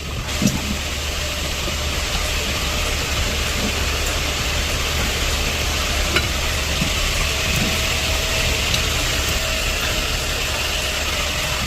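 TIG welding arc burning steadily: a continuous hiss with a low electrical hum underneath.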